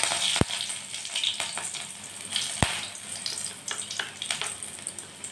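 Chopped green chilli sizzling and crackling in a little hot oil in a kadai, the sizzle slowly easing off. Two sharp knocks come about half a second and two and a half seconds in.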